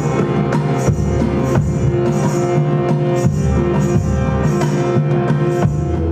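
Large hand drums struck by hand in an uneven pattern of about two beats a second, over a steady ringing drone. The drumming stops at the very end.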